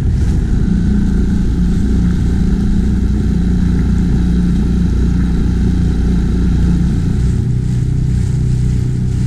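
Small outboard motor on an F-Rib 275 inflatable boat running steadily under way.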